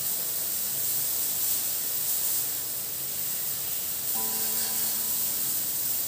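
Jet of water spraying onto a tiled bathroom wall, a steady hiss, with soft background music.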